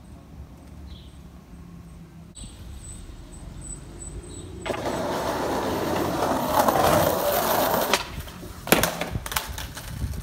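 Skateboard wheels rolling over rough concrete, swelling louder for about three seconds before stopping abruptly. A few sharp clacks of the board hitting the ground follow.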